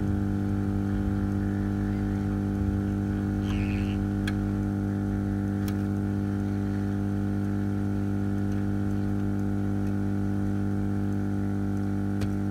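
Hot air rework station blowing hot air onto a surface-mount EEPROM chip to desolder it: a steady low buzzing hum from its blower, with a few faint ticks.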